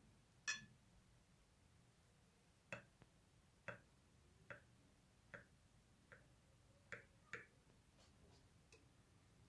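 Short, sharp clicks, about ten of them roughly a second apart, as a metal-bladed cake server cuts a slice from a soft, milk-soaked cake and taps against the glass serving plate.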